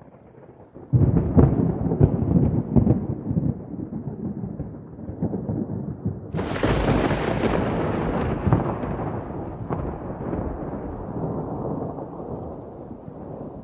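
Thunder: a faint low rumble, then a loud clap about a second in that crackles and rolls. About six seconds in comes a second, sharper crack, followed by a long rumble that slowly dies away.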